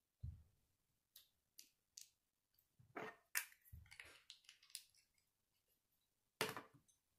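Plastic Lego bricks clicking and snapping together as small pieces are pressed onto a model, with a few dull knocks of the model on a wooden tabletop. The clicks are scattered and irregular, the loudest a little over three seconds in and another near the end.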